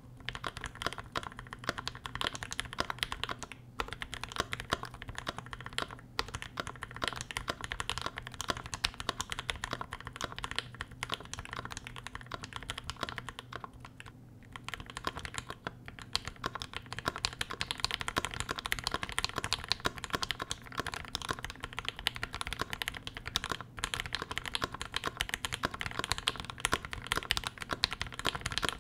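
Fast continuous typing on a KBD67 MKII mechanical keyboard with a brass plate and ePBT keycaps: a dense stream of keystroke clacks from lubed C3 Tangerine linear switches. After a brief pause about halfway, the same board goes on with lubed C3 Banana Split linear switches, which sound much the same.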